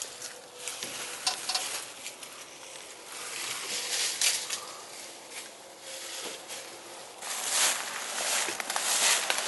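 Footsteps crunching and rustling through dry fallen leaves, irregular, getting louder and busier about seven seconds in.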